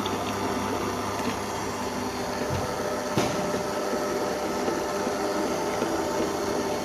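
Electric kitchen mixer running steadily, mixing eggs, sugar and hot milk, with a single short knock about three seconds in.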